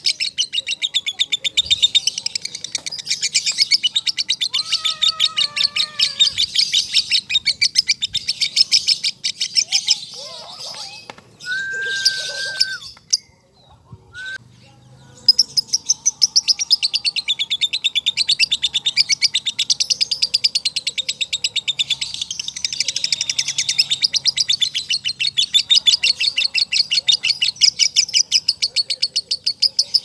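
Male Fischer's lovebird 'ngekek': a long run of rapid, high, sharp chirps with very short gaps between them. The bird breaks off for a few seconds about ten seconds in, then takes up the rapid chattering again.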